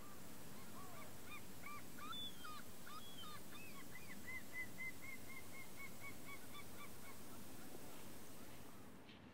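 Geese honking: a run of short calls, ragged at first, then an even series of about three a second that stops about two seconds before the end, over a steady outdoor hiss.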